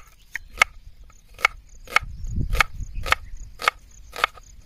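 Kitchen knife slicing small red onions on a wooden chopping board: a sharp knock each time the blade goes through and meets the board, about two a second.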